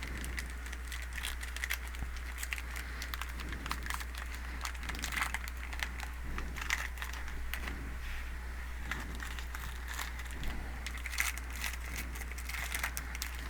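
Trading cards and their plastic packaging being handled: irregular crinkling and small crackling clicks, over a steady low hum.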